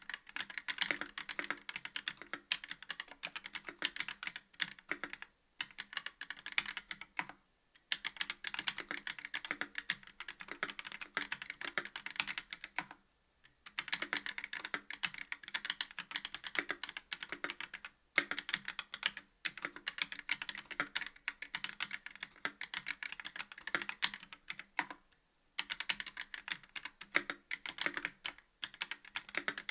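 Typing on a KBD67 V2 MKII mechanical keyboard with a brass plate, stock YOK Trash Panda linear switches, GMK keycaps and lubed, clipped PCB-mounted stabilizers: a fast, steady run of keystrokes, broken by short pauses about 8, 13 and 25 seconds in.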